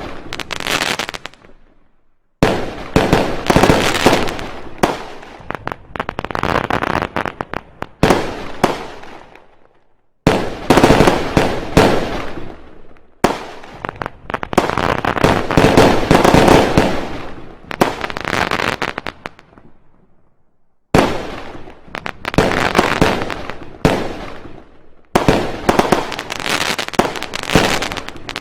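Fireworks going off in rapid volleys of loud bangs and crackling, in several stretches that start and stop abruptly with short silent gaps between them.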